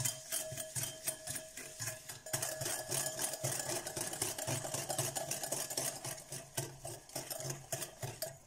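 Wire balloon whisk beating instant coffee, sugar and hot water in a glass bowl, the wires clicking rapidly against the glass. The mixture is still thin and dark, at the start of being whipped into dalgona foam.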